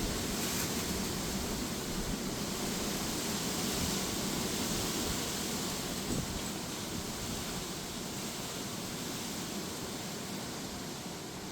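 Strong, gusty wind with rain: a steady rushing noise that eases slightly toward the end.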